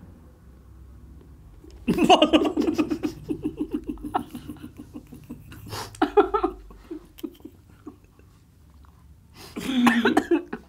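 Two people laughing out loud: a sudden burst of rapid, rhythmic laughter about two seconds in that trails off, more laughter around the middle, and another loud burst near the end.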